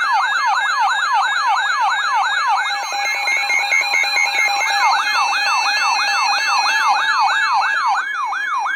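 Electronic yelp siren sounding as the alert tone for a tornado warning: fast rising-and-falling sweeps, about four a second, layered with steady tones. It cuts off suddenly near the end.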